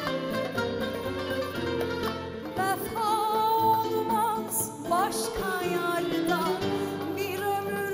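Turkish art music (sanat müziği) ensemble playing live: plucked strings such as the ud with bowed strings and a wavering melodic line, with a woman singing over it.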